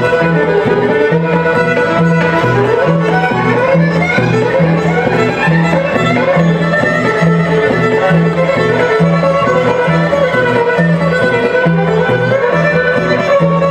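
Bluegrass-style string band playing: a fiddle carries the melody with sliding notes over a steady upright-bass pulse and guitar.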